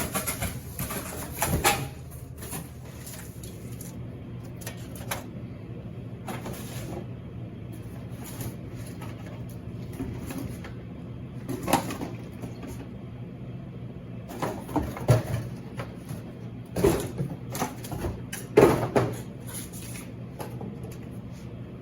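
Scattered knocks and clatters of goods being handled while a vending machine is restocked, loudest in a cluster near the end, over a steady low hum.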